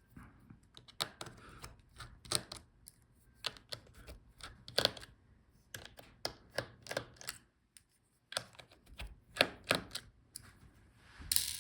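Irregular light clicks and taps of a small screwdriver working the battery screws inside a Dell Inspiron 16 5625 laptop. A short dead-silent gap comes about eight seconds in.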